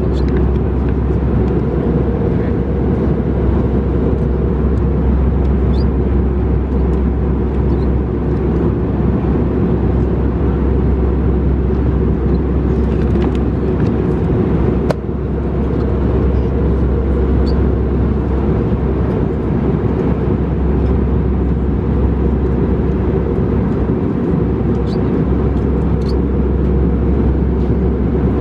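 Steady low cabin drone inside an Airbus A319 in flight, the noise of the engines and airflow, with a few faint paper rustles and clicks as menu pages are turned.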